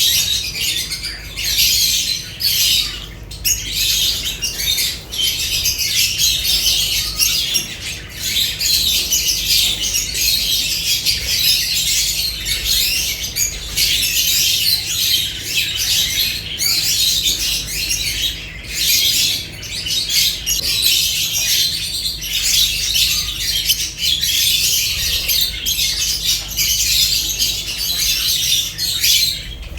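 Lovebirds chattering and squawking without pause in a dense, high-pitched din, over a faint steady low hum.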